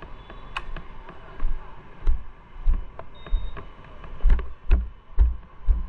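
Footsteps of a person walking on concrete pavement, about two steps a second, heard as low thuds with light scuffs. They grow heavier about two seconds in.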